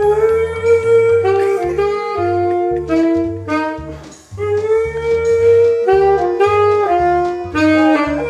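Jazz saxophone music: a melody of held notes over a repeating bass line. A small dog howls along with it, fainter than the music.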